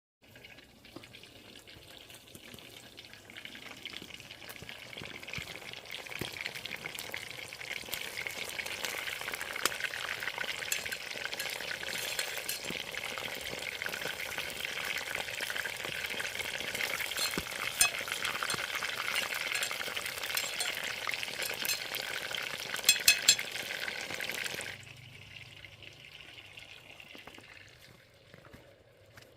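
Chicken deep-frying in hot oil in a cast-iron cauldron: a steady sizzle that builds over the first several seconds, with scattered sharp crackles and a quick run of three pops, then drops away abruptly a few seconds before the end.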